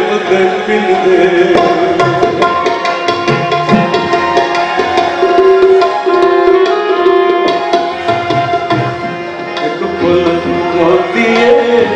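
Instrumental passage of a Punjabi folk song: tabla playing a quick rhythm over steady held harmonium notes.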